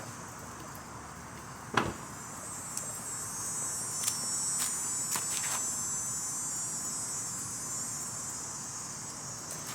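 Steady high-pitched insect chorus that swells through the middle, with a few scattered clicks and one sharp knock about two seconds in.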